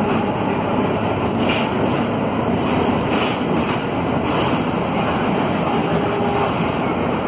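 Interior sound of a Volvo B9SALF city bus under way: a steady mix of its rear Volvo D9A six-cylinder diesel and road noise, with a few light rattles from the body fittings.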